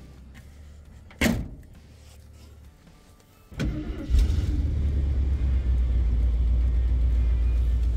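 AMC Javelin's engine being started with the key: a sharp click about a second in, a short burst of cranking about three and a half seconds in, then the engine catches and runs steadily from about four seconds on.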